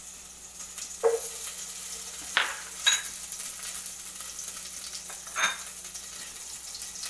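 Butter sizzling as it melts in a hot enamel pot. A spoon and ladle scrape and clink against the pot a few times.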